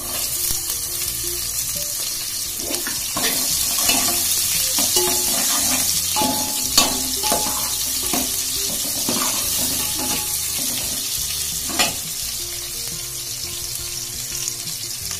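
Sliced onions sizzling as they fry in hot oil with whole spices in a steel pot, stirred with a steel ladle that scrapes and knocks against the pot. The loudest knocks come about seven and twelve seconds in.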